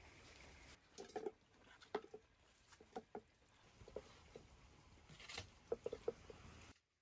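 Raw grass carp pieces being slid off a clay dish into an enamel bowl: a scattered run of soft wet slaps and light knocks, about a dozen over several seconds.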